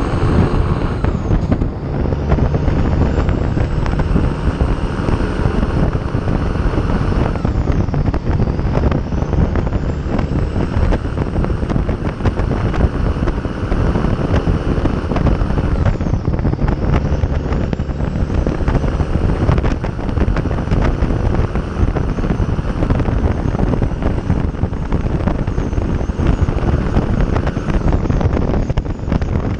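Freightliner Classic's Detroit diesel engine running steadily at highway cruise, heard from outside the cab with wind rushing over the microphone.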